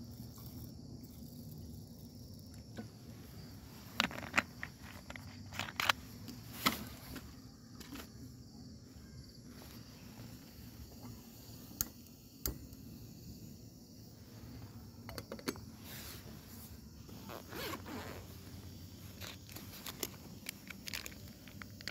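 Handling of camp cooking gear: scattered clicks, taps and rustles, with a zipper being worked on a soft bag near the end.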